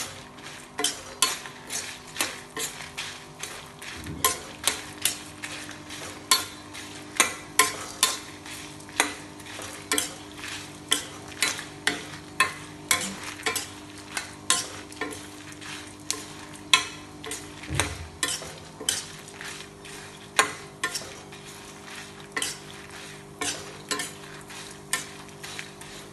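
A metal spatula scrapes and knocks against a black iron kadai, about one or two strokes a second, as urad dal (black gram), dried red chillies and spices are stir-fried in a little oil, with a faint sizzle and a steady low hum underneath. This is the roasting stage, with the dal browning.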